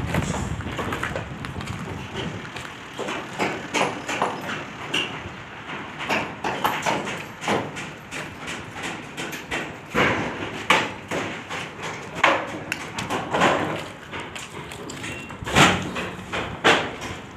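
Irregular hard knocks and taps, sometimes one or two a second, some much louder than others, over a steady background noise.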